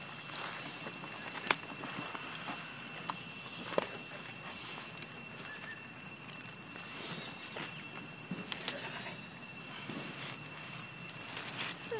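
Steady, high chirring of insects in the undergrowth, with three sharp clicks and soft rustles of dry leaves.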